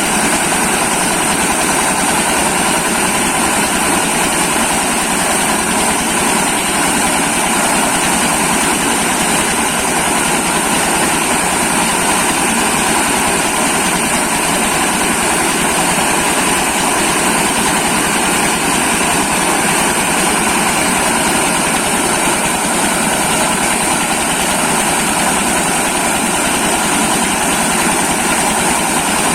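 Corn milling machine running steadily: a loud, constant machine noise with a steady high hiss, unchanging throughout.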